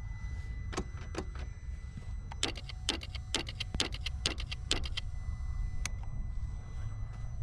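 Dry clicking from the KTM 790's starter circuit as the start button is pressed again and again and the engine does not turn over: a couple of clicks, then a quick run of about a dozen, then one more near the end. The rider suspects a failed starter, since the battery reads 12.7 V. A low rumble runs underneath.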